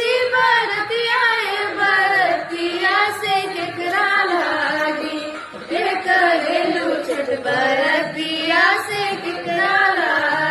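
A woman singing a Chhath geet, a devotional folk song of the Chhath festival, in long phrases with gliding, ornamented pitch.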